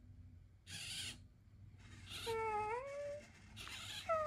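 Elephant Robotics metaDog robot dog playing its sad whining dog sounds through its speaker, its response to the voice command "be sad". A couple of short breathy huffs come first, then a drawn-out whine about two seconds in and another near the end.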